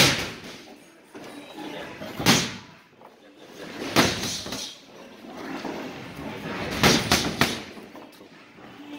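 Boxing gloves punching focus mitts: sharp slaps at uneven intervals, two of them close together near the end.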